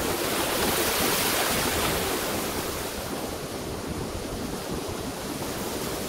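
Steady rushing wind noise buffeting the microphone outdoors, with a gusty low rumble; no bird calls stand out.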